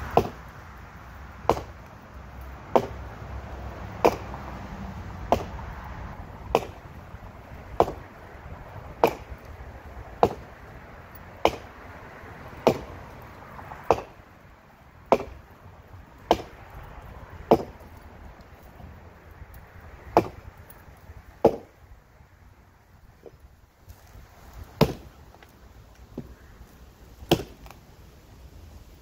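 Axe chopping into a fallen tree branch by hand: sharp wooden strikes about one every 1.2 seconds, with a couple of short pauses in the second half.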